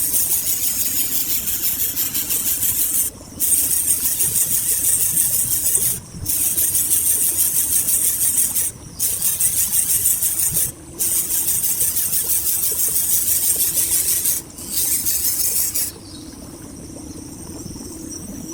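Loud, high-pitched insect buzzing, broken by short gaps every two to four seconds, that drops away about sixteen seconds in to a fainter, steady high insect drone.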